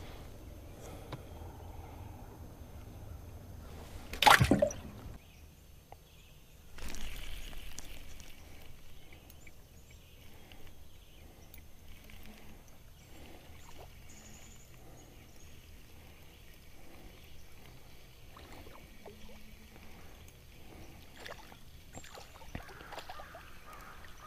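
Water sloshing around a small fishing boat, with one sharp, loud knock about four seconds in and a short rush of water about three seconds later. Small clicks of tackle being handled come in between.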